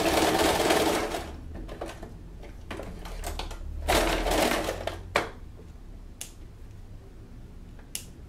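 Domestic sewing machine running a tight, narrow zigzag (ponto mosca) to tack a bra strap, stopping about a second in. Then fabric handling and a few sharp clicks, with scissors snipping the thread near the end.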